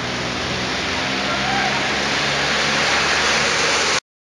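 Steady rush of heavy rain pouring down during a thunderstorm, growing slightly louder before cutting off suddenly near the end.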